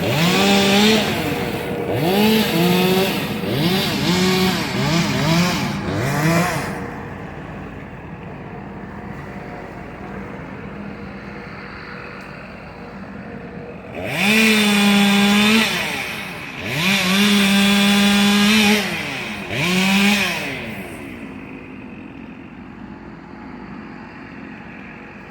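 Two-stroke chainsaw revving in bursts: several quick blips of the throttle in the first six seconds, then three longer full-throttle runs just past the middle, dropping back to a quieter running note in between.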